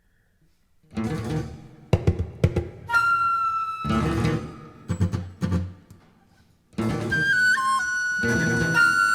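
A mixed Chinese and Western chamber ensemble playing in broken phrases. About a second in it enters with sharp accented strikes, then a flute holds a high note. After a short pause near six seconds, the ensemble comes back in under a long flute note that steps in pitch.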